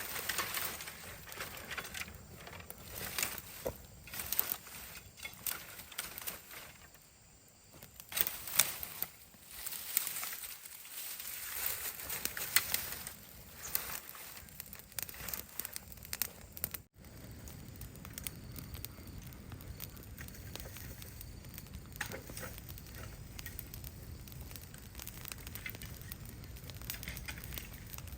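Irregular crackling, rustling and snapping, many small sharp clicks in quick succession. About seventeen seconds in it cuts off abruptly and gives way to a steadier, lower rushing noise with fainter crackles.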